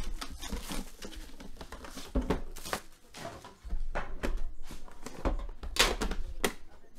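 Hands unwrapping and unboxing a Panini Immaculate Collection trading-card box: plastic shrink-wrap crinkling and tearing, cardboard sliding and scraping, and light knocks as the inner boxes are lifted out and set down.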